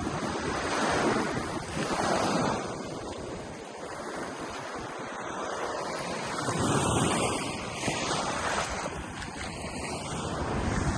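Gulf surf: small waves breaking and washing up the beach in repeated swells of noise, with wind buffeting the microphone.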